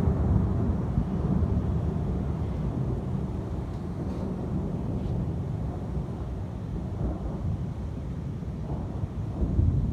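Thunder rumbling in a long low roll that slowly fades after a loud peak, swelling slightly again near the end.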